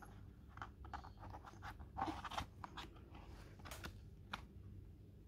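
Faint scattered clicks and rustles of hands handling a jewelry box, with a louder rustle about two seconds in.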